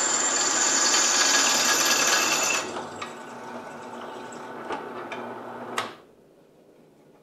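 Benchtop drill press drilling through an annealed leaf spring steel knife tang, a loud steady whir of the bit cutting. About two and a half seconds in, the bit comes free and the press runs more quietly with a few light clicks. Near six seconds a sharp click as it is switched off, and the motor stops.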